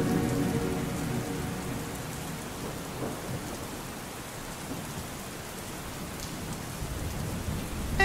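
Steady rain falling, with a low rumble of thunder underneath. The tail of a song fades out in the first couple of seconds.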